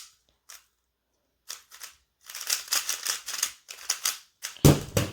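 Rubik's cube being turned fast in a solve: bursts of quick plastic clicking and clacking, with a loud thump near the end.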